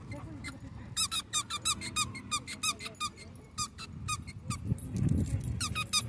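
A dog chewing a squeaky toy, with rapid runs of short, high squeaks several times a second.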